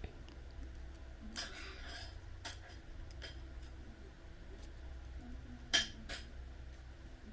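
Small tools clicking and scraping on the parts of an opened Garmin Forerunner 935 watch: a brief scrape about a second and a half in, a few light ticks, and a sharper click near six seconds. A steady low hum runs underneath.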